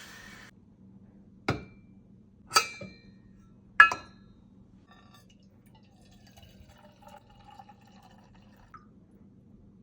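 Three sharp glass clinks about a second apart, each ringing briefly, the third the loudest, followed by faint light handling sounds.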